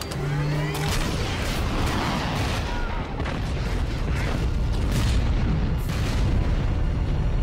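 Action-film sound mix of explosions: a run of sharp blasts and heavy booms over a film score.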